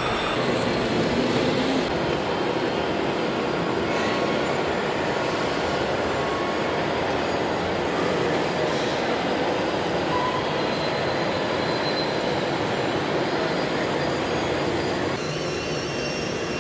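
Steady mechanical whirring of radio-controlled construction machines working, with a few faint steady tones; the sound shifts and drops slightly about fifteen seconds in.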